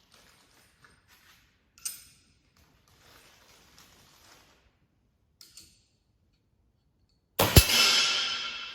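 A .177 air rifle firing one shot near the end: a sudden sharp report with a ringing tail that dies away over about a second. A few faint clicks come before it.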